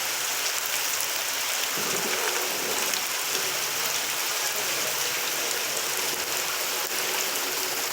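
Steady rain pouring down, an even hiss of drops hitting the ground.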